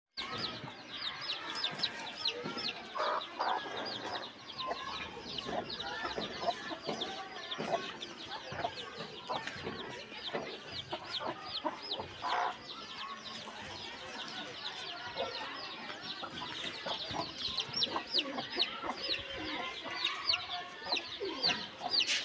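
Domestic chickens clucking, with a louder call about three seconds in and another about twelve seconds in, over a constant fast high chirping.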